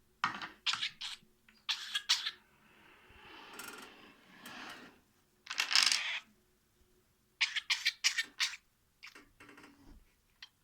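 Budgerigar making short, sharp cough-like sounds, like a child coughing, in little runs of two or three, with the loudest cough about six seconds in.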